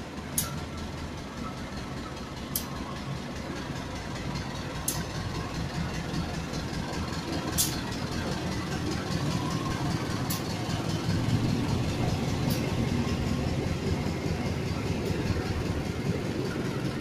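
A CC 201 diesel-electric locomotive runs past with its engine humming, followed by passenger coaches rolling by on the rails with a steady rumble that grows louder around the middle. Sharp clicks come every two to three seconds as the train passes.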